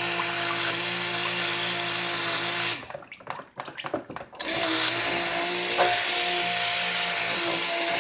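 Handheld stick blender running in a bowl of soap-making oils, blending in kaolin clay and oatmeal, with a steady motor hum. It stops about three seconds in and starts again a second and a half later.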